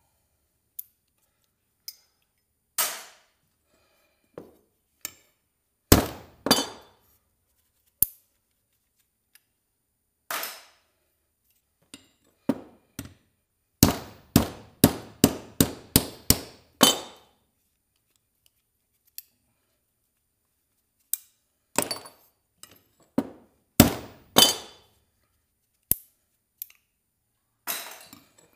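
Scrap metal clanking: irregular sharp metal strikes, each ringing briefly, with a quick run of about ten strikes at roughly three a second around the middle.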